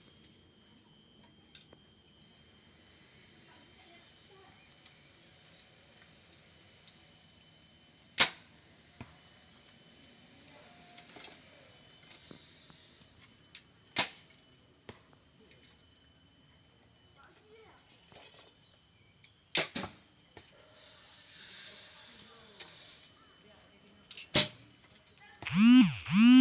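Recurve bows being shot: four sharp string snaps as arrows are released, several seconds apart, over a steady high drone of insects. Just before the end comes a loud sound that slides up and down in pitch twice.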